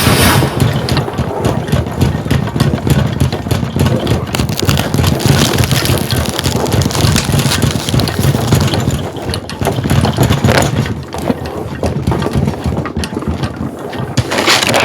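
Earthquake sound effect: a loud, continuous deep rumble with rattling and clattering throughout, easing off briefly about three-quarters of the way through.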